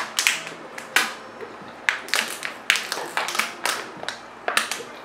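Two people chugging water from thin disposable plastic bottles: an irregular string of sharp crackles and gulps as the bottles are drained.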